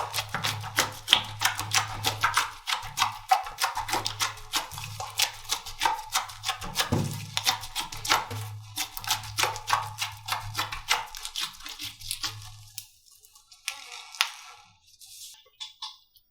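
Slime being squeezed and poked by hand, a dense run of crackling, clicking pops with a low hum underneath. Both stop about 13 seconds in, leaving a few scattered clicks.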